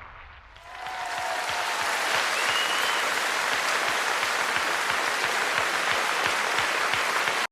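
Audience applauding, dense clapping that swells in about half a second in, holds steady and cuts off suddenly at the end.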